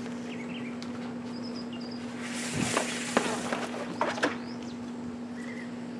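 Clear rear window of a Trektop NX soft top being pulled out of its track: a rustling slide of fabric and plastic for about a second in the middle, with a few clicks and taps. Faint bird chirps and a steady low hum sit behind it.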